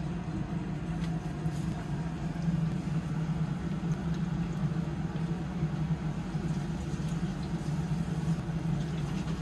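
Steady low hum of a small bar's room tone, with a few faint clicks.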